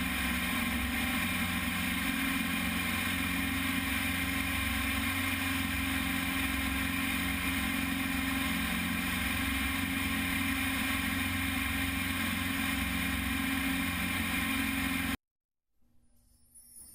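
Steady drone of a single-engine light aircraft's piston engine and propeller in flight, a dense stack of unchanging tones over a hiss. It cuts off abruptly about fifteen seconds in, leaving near silence.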